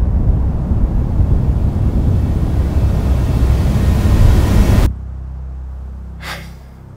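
A loud, rough rushing rumble that cuts off abruptly about five seconds in, followed by a steady low hum.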